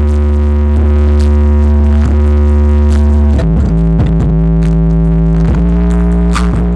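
Electronic song played loud through a Sony MHC-DX8 mini hi-fi system with MHC-DX5 speakers: deep held bass and synth chords, with the chord changing about three and a half seconds in.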